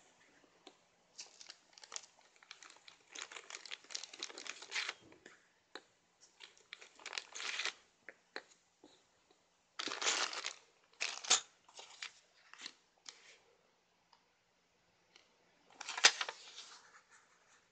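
Clear plastic packaging crinkling in irregular bursts as wooden cuticle sticks are pulled out of their bag and set down. There is a sharp tap a little past the middle and another near the end.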